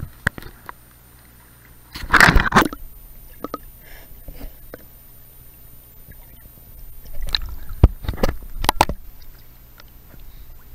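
Water splashing and sloshing at the stream surface in two bursts, about two seconds in and again between about seven and nine seconds in, with quieter gurgling between.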